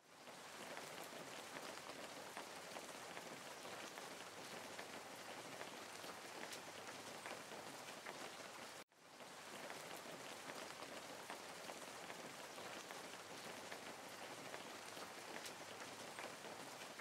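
Steady, quiet rain falling, with scattered faint drop ticks. It cuts out for a moment about nine seconds in, then fades back in.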